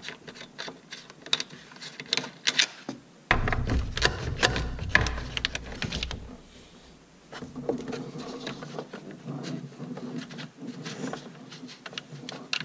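Short clicks and rattles of hands working at a plastic radiator fan shroud and the wiring connector beside it. About three seconds in, a low rumble of handling noise runs for a few seconds.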